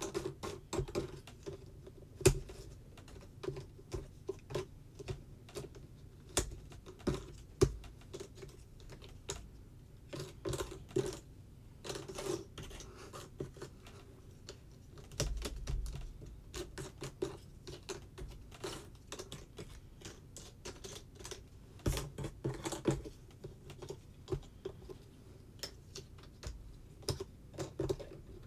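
Jigsaw puzzle pieces being handled on a table: irregular light clicks and taps as pieces are picked up and set down, with brief rustles of pieces sliding and a few louder knocks.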